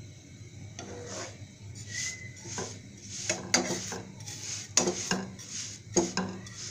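Plastic spatula scraping and tapping against a non-stick frying pan as a paratha is pushed round the pan. The strokes start about a second in, with a few sharper knocks in the second half.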